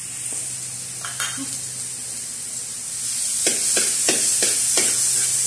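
Minced garlic sizzling in hot oil in a metal wok, the sizzle growing louder about three seconds in. A metal spatula scrapes and clinks against the wok several times in quick succession near the end as the garlic is stirred.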